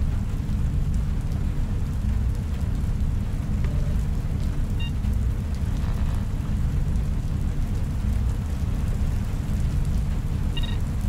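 Sci-fi room ambience: a deep, steady rumbling drone, with two short electronic beeps, one about five seconds in and one near the end.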